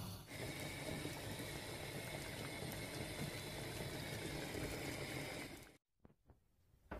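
Sugar syrup with a lemon slice boiling in a stainless steel pot, a steady bubbling hiss that cuts off suddenly about six seconds in.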